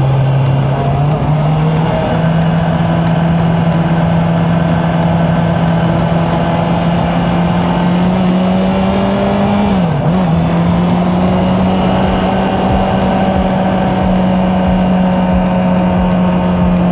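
Honda CB650F's inline-four engine running at a steady cruise on a winding road, its pitch creeping slowly upward, with a brief dip and recovery about ten seconds in. Wind rush runs underneath.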